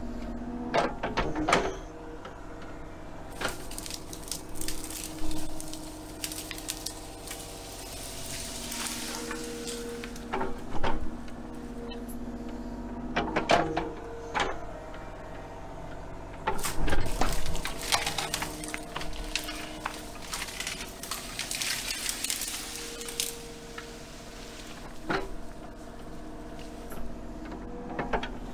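Kubota mini excavator's diesel engine running, its note swelling and easing as the hydraulics are worked, while the bucket and thumb dig and rake through brush. Repeated sharp cracks and knocks of branches and the bucket are heard, with stretches of scraping and rustling.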